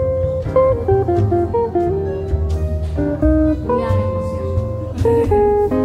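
Background music: an instrumental track led by plucked guitar notes over a steady bass line.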